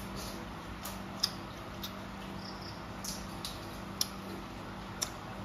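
Cooked crab being eaten by hand: a few small, sharp clicks and cracks of shell being picked apart and chewed, the strongest about a second in, over a steady low hum.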